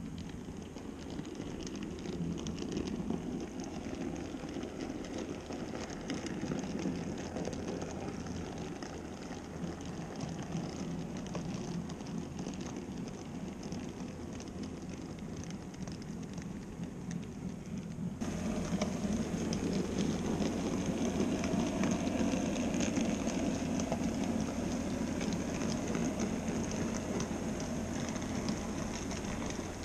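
N-scale model train running on the layout track: a steady rumble of its small motor and wheels with rapid fine clicking over the rails. It turns abruptly louder and brighter about 18 seconds in.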